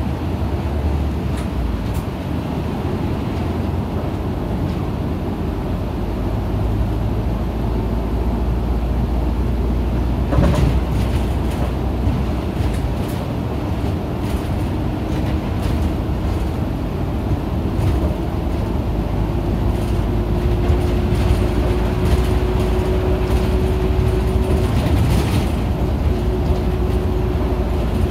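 Inside the cabin of an Isuzu KL-LV280N1 city bus under way: the diesel engine and drivetrain running with a steady low road rumble. A faint whine climbs slowly in pitch through the middle, and there is a single bump or knock about ten seconds in.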